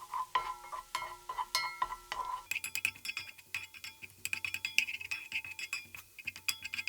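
Spatula stirring minced garlic in a frying pan: quick, irregular clinks and taps against the pan, getting busier about halfway through.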